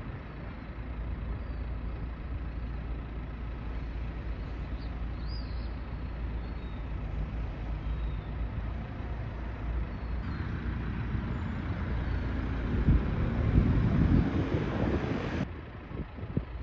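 Street traffic noise: a steady low rumble, with a vehicle passing close that grows louder to a peak about two-thirds of the way through, then cuts off abruptly near the end.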